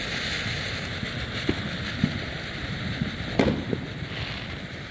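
TNT Fireworks ground fountain spraying sparks with a steady hiss. A few short sharp pops come through it, the loudest about three and a half seconds in.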